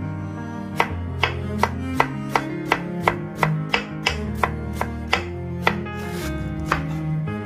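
Knife shredding cabbage on a wooden cutting board: a steady run of strokes against the board, about two to three a second, with background music underneath.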